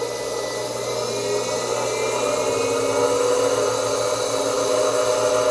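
Dynabrade Virtubrade belt grinder running in forward on its 1-hp DC motor, a steady motor and belt whine. The whine rises a little in pitch from about two seconds in, as the variable speed is turned up.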